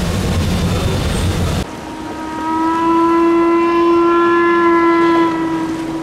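A low rumble, then about two seconds in the paddle steamer's ship horn sounds one long steady blast of about three seconds, easing a little softer near the end.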